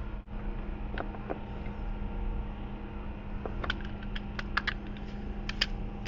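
Car engine idling steadily with a new ignition coil pack fitted on cylinder 2 to cure a misfire. A scattered run of light clicks and ticks comes over it in the second half.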